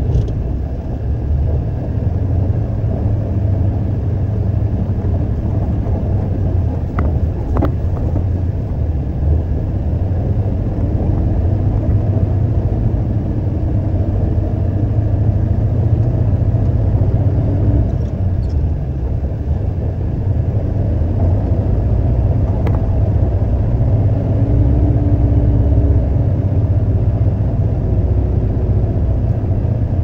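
Concrete mixer truck's engine running with a steady low rumble, with a few faint clicks over it.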